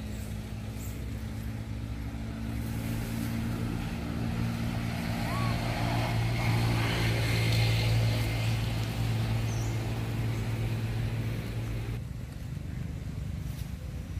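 A motor vehicle's engine running with a steady low hum, growing louder toward the middle and cutting off abruptly about twelve seconds in.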